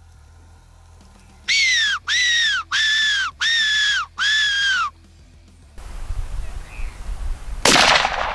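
Hand-blown Silva predator whistle giving five squealing calls in a row, each jumping up in pitch and then sliding slowly down, used to call in foxes. A loud bang comes near the end.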